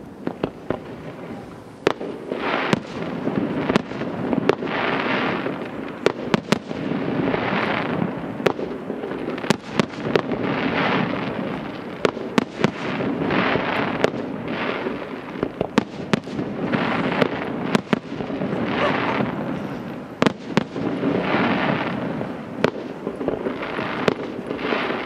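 Aerial fireworks shells bursting in a continuous display: sharp bangs, often in quick clusters, over waves of noise that swell and fade every two to three seconds. The bangs are sparse at first and come thickly from about two seconds in.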